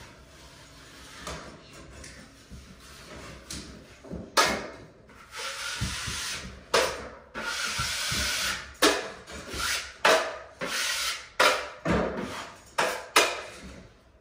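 Metal taping knife scraping joint compound across drywall seams over mesh tape: light scrapes at first, then from about four seconds a run of about a dozen quick, loud strokes.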